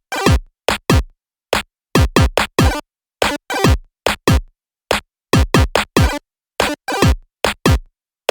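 Background electronic music: a drum-machine beat of punchy hits, each falling in pitch, in a stop-start rhythm with brief silent gaps between them.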